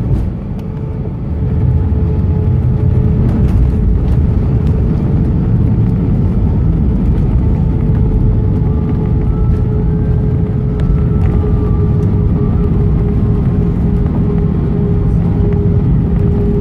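Airbus A320 cabin noise while taxiing after landing: the jet engines' steady hum with a low rumble from the wheels rolling on the taxiway. It dips briefly at the start and swells back up about one and a half seconds in.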